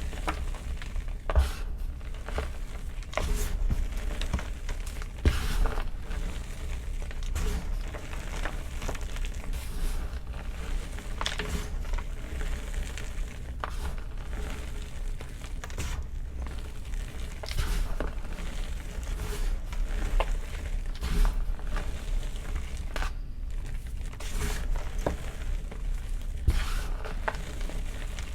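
Blocks of gym chalk being crushed and crumbled, an irregular run of dry crunches and crackles.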